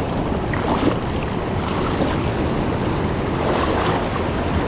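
Rushing creek water: a steady, loud wash of noise.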